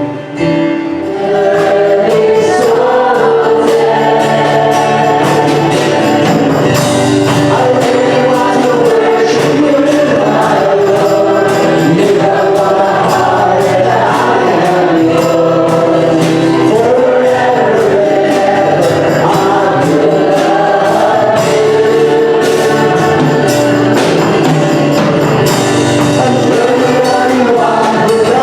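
Gospel worship song: a group of voices singing together over instrumental accompaniment with a steady beat and tambourine-like percussion.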